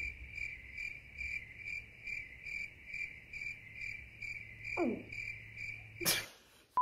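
Cricket chirping sound effect: a steady, high, even chirp about twice a second, the comic 'crickets' of an awkward silence. About five seconds in a short downward-sliding sound cuts across it, and just after six seconds a brief burst of noise as the chirping cuts off.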